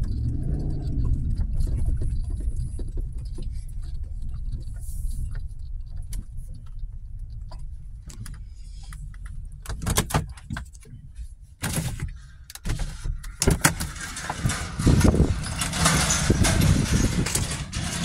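Chevrolet pickup truck running, heard inside the cab as a steady low rumble. A few sharp clicks and knocks come a little past halfway, then a louder rushing noise fills the last few seconds.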